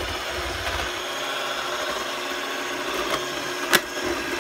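Electric hand mixer running steadily, its beaters shredding cooked chicken breasts in a plastic bowl. A single sharp clack sounds near the end.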